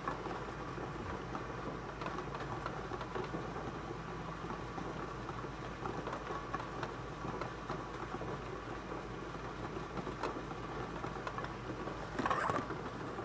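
Bingo ball blower machine running: steady air noise with the balls rattling and clicking as they tumble in the chamber. A brief louder sound near the end.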